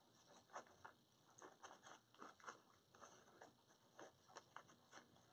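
Near silence with faint, irregular crinkling and ticking from decorative ribbon and deco mesh being handled.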